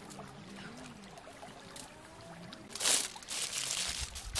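Aluminium foil crinkling as it is folded up around a piece of chicken, starting suddenly and loudly about three seconds in, after a few quiet seconds of faint background.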